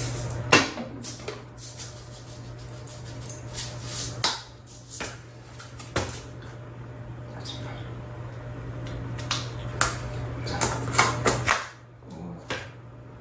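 Scattered clinks and knocks of a spoon and small containers against stainless-steel bowls, over a steady low hum that stops near the end.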